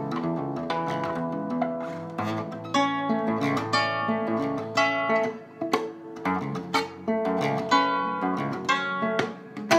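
Nylon-string classical guitar played fingerstyle: a run of plucked single notes and chords, with brief gaps between phrases about five seconds in and again near the end.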